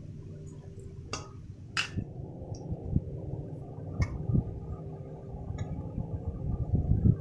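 A spoon clinking a few times against a bowl while a mixture is stirred, with soft low knocks, the loudest near the end, over a steady low hum.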